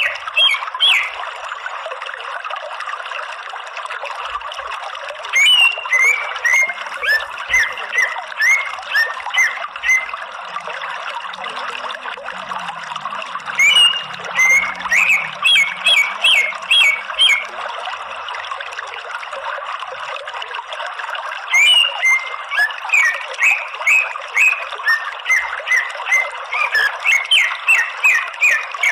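Greater green leafbird (cucak ijo) singing in three bouts of rapid, sharp, repeated notes, the first about five seconds in, the next around fourteen seconds and the last from about twenty-two seconds, over a steady background hiss.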